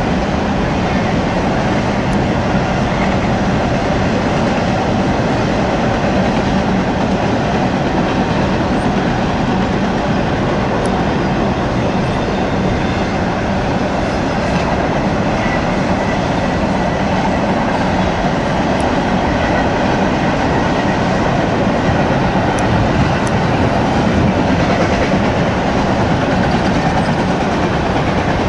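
Double-stack container well cars of a CSX intermodal freight train rolling past, the steel wheels on the rails making a steady, continuous noise with no break.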